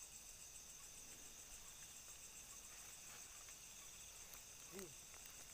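Faint, steady chorus of crickets and other insects, made of continuous high-pitched trilling.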